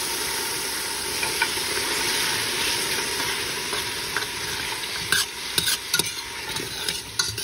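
Sliced yellow onions and baby carrots sizzling in a hot stock pot. From about five seconds in, a spoon scrapes and clacks against the pot as they are stirred.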